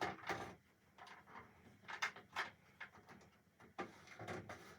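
Faint scattered clicks, knocks and rustles, about half a dozen spread over a few seconds, from laundry and clothespins being handled on a retractable indoor clothesline.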